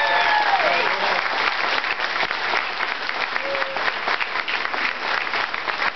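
A crowd applauding steadily, with a voice calling out over the clapping in the first second.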